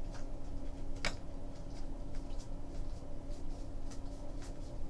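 Trading cards being handled and flipped through: soft scattered ticks and rustles, with one sharper click about a second in, over a steady low hum.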